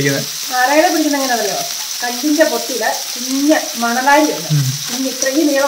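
Fish frying in a pan of oil, a steady sizzle under a woman talking in Malayalam.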